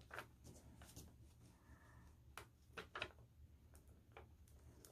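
Near silence: faint room hum with about half a dozen light taps and rustles of paper cards being handled in a handmade journal.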